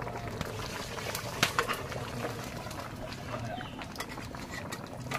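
Large aluminium pot of mutton curry boiling hard over a wood fire: a steady bubbling hiss with scattered pops and clicks, one sharper click about a second and a half in.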